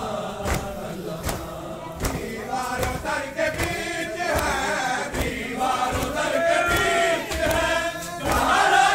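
A crowd of male mourners chanting a nauha (Shia lament) together, over rhythmic matam, hands striking chests in unison about every three-quarters of a second. The chanting voices grow stronger from a couple of seconds in.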